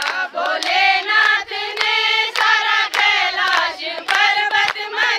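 Group of women singing a devotional bhajan to Shiva in unison, with steady rhythmic hand-clapping keeping time.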